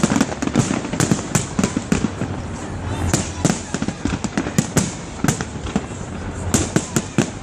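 Fireworks display: a rapid, irregular run of sharp bangs and crackles, several a second, over a steady low rumble of shells bursting.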